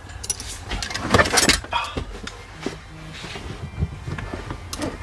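Metal hand tools clinking and rattling against the shift-linkage bolt as a wrench is worked on it. A burst of clinks comes about a second in, followed by a few lighter clicks.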